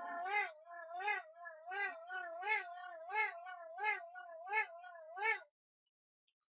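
Wind-up torch's hand-cranked dynamo and gear train whining as the crank is turned. The whine wavers in pitch, with a rasp on each turn of about 0.7 s, and stops about five and a half seconds in. The crank is being spun fast enough that the dynamo is drawing current, the point at which it gets harder to turn.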